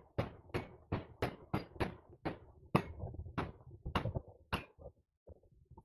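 SIG P320 X-Compact pistol fired in quick succession, about a dozen shots at a little under three a second, stopping near the end.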